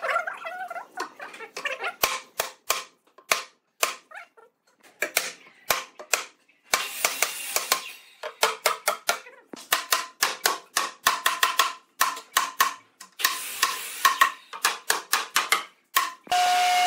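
Wooden mallet knocking a wooden edge strip into place on a wooden tabletop: many sharp knocks, some in quick runs of light taps.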